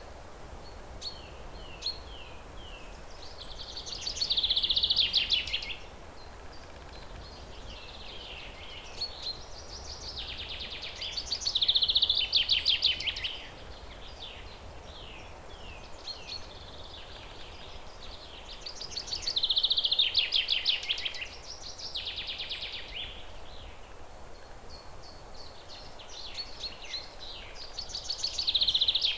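Birdsong: a bird repeats the same loud, rapid trilled phrase about every eight seconds, four times, with softer short chirps between, over a steady low background rumble.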